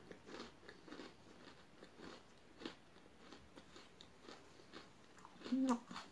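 Soft mouth sounds of chewing chocolate-coated Pocky biscuit sticks with the lips closed: many small wet clicks and crunches. A short hummed 'mm' comes about five and a half seconds in.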